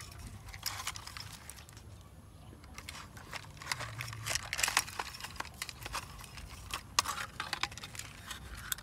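Broken plastic toy truck and excavator parts handled by hand, clicking and clattering against each other in quick irregular bursts, busiest in the middle and again about seven seconds in.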